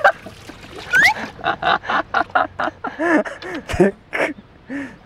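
A person's voice in short, quick bursts of sound with a quick even run of syllables, not picked up as words.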